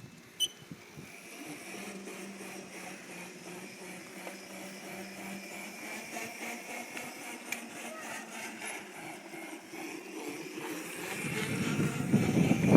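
Child's ATV running with a faint steady hum, growing louder over the last couple of seconds as it comes closer.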